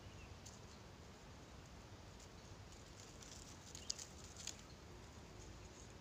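Quiet outdoor woodland ambience with a faint low rumble. A handful of brief, high-pitched ticks or chirps come in the middle, the loudest about four seconds in.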